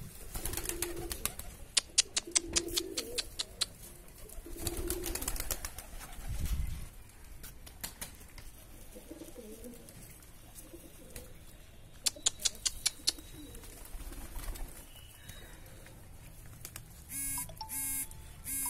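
Domestic madrari pigeons cooing in low, repeated phrases, with runs of sharp clicks now and then. Near the end a repeated electronic beeping starts.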